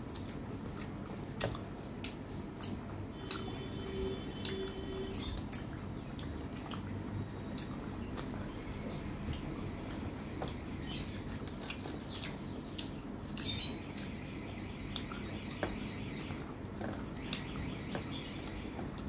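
Rice and mutton curry being mixed by hand on a steel plate: soft squishing of the food with scattered light clicks of fingers against the metal plate.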